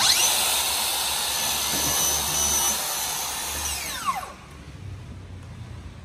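Makita SP001G brushless cordless plunge-cut saw spinning up sharply and cutting along a guide rail through a glued-up wood panel for about four seconds, then winding down with a falling whine once the trigger is let go.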